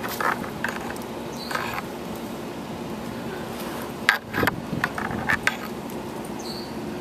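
Steady low background hum, with a cluster of sharp clicks and clinks about four to five and a half seconds in.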